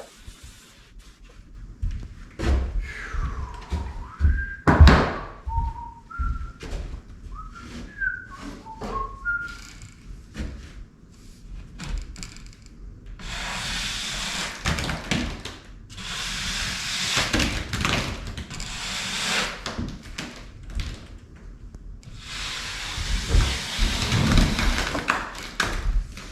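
Knocks and thunks, with a person whistling a few notes over them. Then three long stretches of rasping, hissing noise as wetted popcorn ceiling texture is scraped off.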